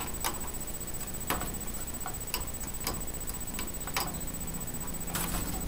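Light, irregular clicks and taps of small plastic cable connectors being handled and seated on a desktop motherboard's headers, about one a second, over a steady faint high-pitched whine.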